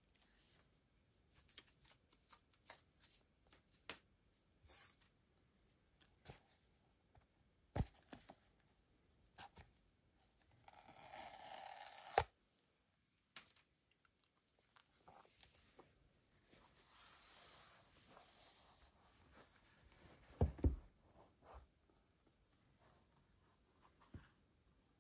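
Small taps and clicks of a cardboard box being handled; about ten seconds in, the paper tear strip on the Apple Watch Series 8 box is ripped off for about a second and a half, ending in a sharp snap. Later come a softer stretch of rustling and a couple of dull thumps as the box is opened.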